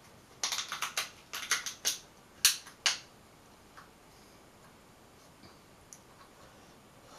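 Crab shell being cracked open by hand: a quick run of about a dozen sharp cracks and snaps, the loudest about two and a half seconds in.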